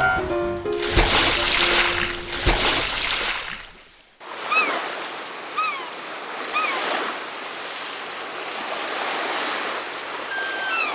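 Background music for the first four seconds, cutting off sharply. Then a steady wash of sea surf, with three short falling bird calls soon after it starts and another near the end.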